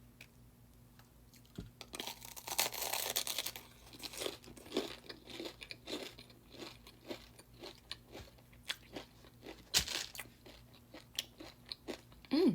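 A person biting into a crispy fried Taco Bell Crispanada and chewing it with the mouth close to the microphone. A loud crunch comes about two seconds in, followed by steady chewing full of short crackles.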